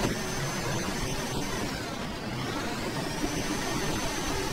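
Video-game semi-truck engine running, with steady rumble and tyre noise as the truck drives over rough ground. A thin high whine dips in pitch midway and comes back up.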